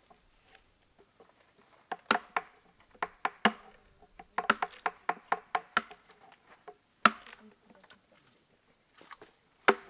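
Hand tools striking wood: irregular sharp knocks, each with a short woody ring, coming in quick clusters with pauses between them.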